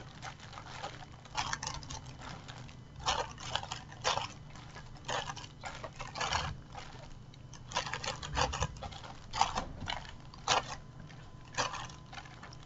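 Football trading cards and opened card packets being handled and sorted by hand for counting: short rustles and taps about once a second, at irregular intervals, over a low steady hum.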